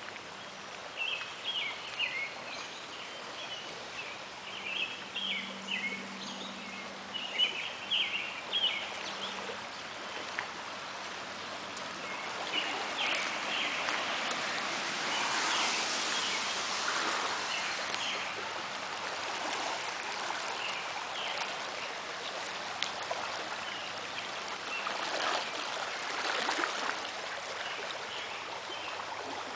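Floodwater in a storm-swollen creek rushing steadily, swelling louder about halfway through and again near the end. A bird chirps repeatedly over it, mostly in the first third.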